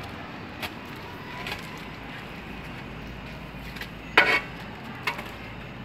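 Scattered footsteps on a paved path strewn with dry leaves, with one louder knock about four seconds in, over a steady low background hum.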